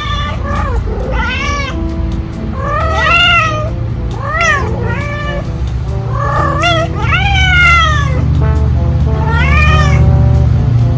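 Cats yowling during mating: a series of about nine drawn-out calls that rise and then fall in pitch, over background music.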